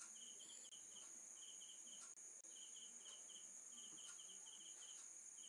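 Faint crickets chirping: short pulses in groups of two or three, repeating in runs with brief pauses, over a steady high-pitched hiss.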